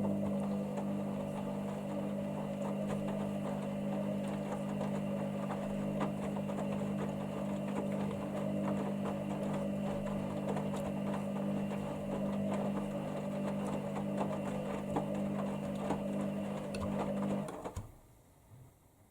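Hoover Dynamic Next washer-dryer's motor turning the drum during the wash, a steady motor hum with a light clatter over it, cutting off sharply near the end as the drum stops.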